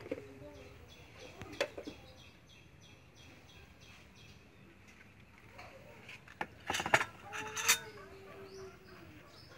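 Glass bowl and aluminium pot knocking and clinking against a tray and tabletop as soup is dished up, the loudest clatter about seven seconds in. Hens clucking in the background.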